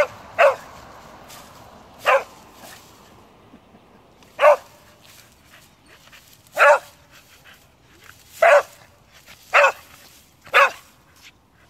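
A dog barking: about eight single short barks, spaced one to two seconds apart.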